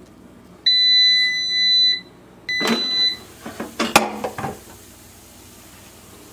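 Air fryer beeping twice, a long steady tone and then a shorter one, followed by a few sharp knocks and clatter from handling the appliance.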